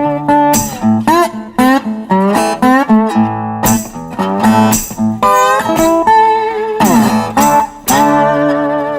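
Background guitar music in a bluesy style: plucked notes that slide and bend in pitch over a held low note.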